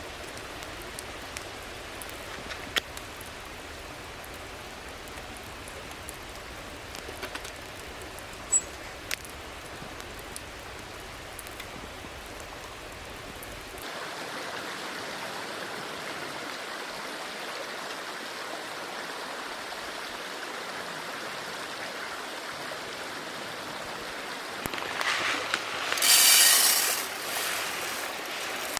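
Rain falling with scattered drips ticking, which gives way abruptly about halfway through to a small stream flowing steadily. Near the end comes a louder noisy burst lasting a couple of seconds.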